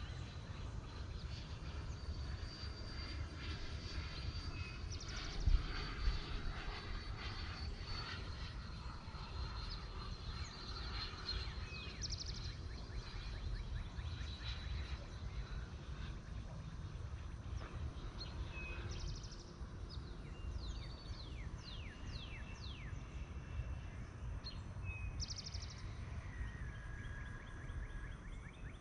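A 105 mm electric ducted fan RC F-16 jet flying at a distance: a faint, steady high-pitched whine through the first half that fades out, over a low wind rumble on the microphone. Short chirps come in the second half.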